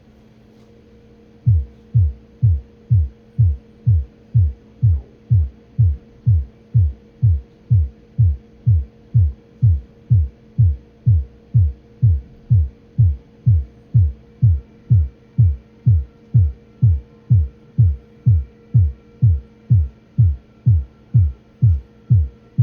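A steady hum, joined about a second and a half in by a loud, regular low thumping pulse, a little over two beats a second, each thump dropping in pitch.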